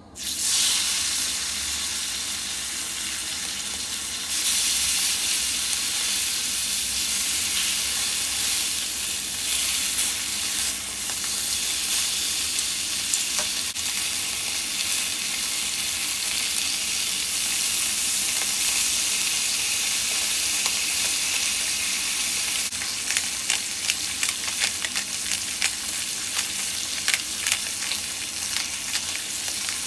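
Lamb chops searing in oil in a hot cast iron skillet: a sizzle that starts suddenly as the first chop goes into the pan, gets louder about four seconds in, and breaks into sharp crackling and popping over the last several seconds.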